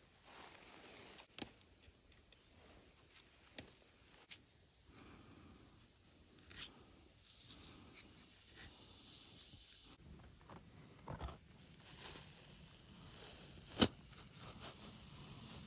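Knife blade scoring through live tree bark in short scrapes and clicks, then the bark being pried and peeled away from the trunk, with a sharp crack near the end.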